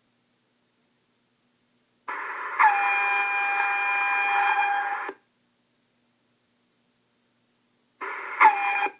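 Two short transmissions heard through a scanner receiving an aviation radio frequency. Each opens with a burst of hiss, then a buzzy tone that drops quickly in pitch and holds steady. The first lasts about three seconds; the second, near the end, lasts under a second.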